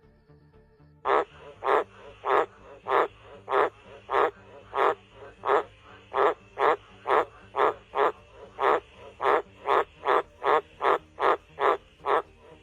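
A frog croaking over and over, about two short calls a second and getting slightly faster toward the end, starting about a second in.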